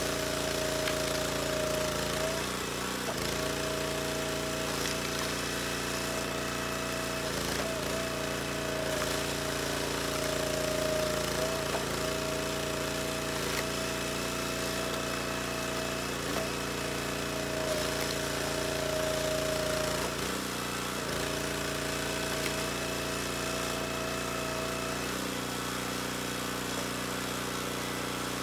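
Small gas engine of a SplitFire log splitter running steadily. A higher steady whine rides over it, breaking off briefly every four or five seconds as the rounds are split, and stops near the end.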